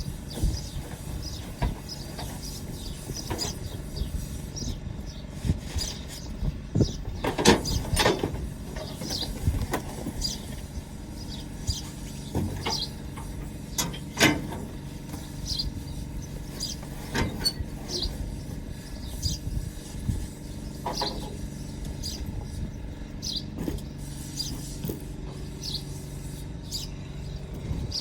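Irregular metallic clinks and knocks of hand tools working on a backhoe engine while a fan belt is fitted, over a steady low hum, with birds chirping.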